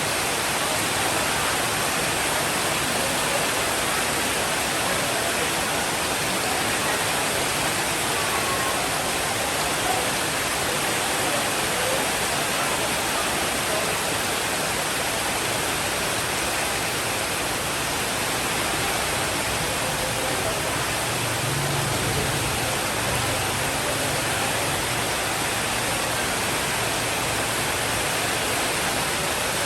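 Steady, dense rainfall hiss, with a low rumble of distant thunder rolling in about two-thirds of the way through.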